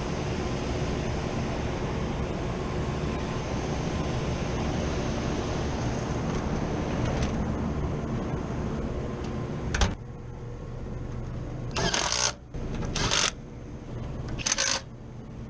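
Rooftop HVAC unit running with a steady mechanical hum. A sharp click comes about ten seconds in, after which it is quieter, and three short bursts of hiss follow near the end.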